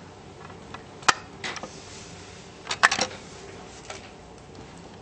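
Plastic teeth of a toy tooth-pressing biting game being pushed down one at a time, giving short sharp clicks: one about a second in, another half a second later, a quick run of three near the middle, and a faint one after.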